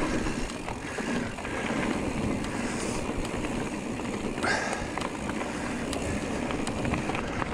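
Mountain bike ride noise from an electric mountain bike on a dirt trail: a steady rumble of tyres and wind buffeting on the microphone, with a few sharp knocks as the bike hits bumps.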